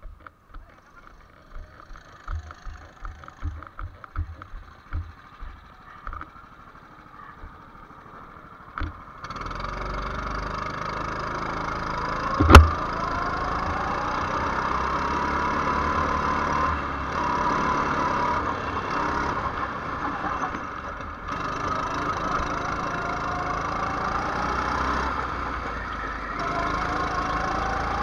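Rental go-kart engine heard from on board: soft and uneven at idle at first, then about nine seconds in it opens up and runs hard, its pitch rising and falling with the kart's speed and dipping briefly twice. A single sharp knock about twelve seconds in is the loudest sound.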